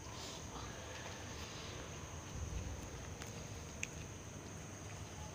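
Crickets chirping in a steady high drone, with the low rumble of the phone being handled and a sharp click about four seconds in.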